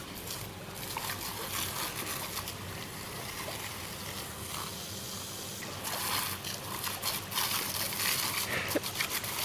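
Water jetting from a garden hose nozzle and splattering, a steady hiss that grows louder and choppier about six seconds in.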